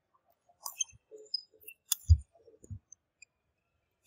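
Badminton rally on a wooden indoor court: one sharp racket hit on the shuttlecock about two seconds in, with a few dull footstep thumps and small squeaks from players moving.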